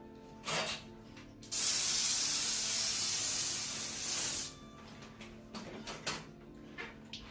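Water spraying from a handheld shower head: a brief burst about half a second in, then a steady hissing spray for about three seconds that stops suddenly. Soft background music runs underneath.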